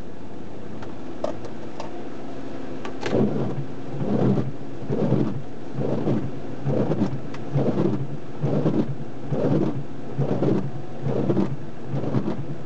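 CB radio receiver hiss with a couple of faint clicks, then from about three seconds in a rhythmic pulsing noise over the static, a little faster than one pulse a second.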